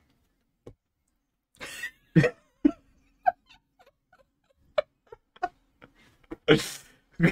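A man and a woman laughing, held back: short breathy bursts of laughter scattered through, with a louder burst near the end.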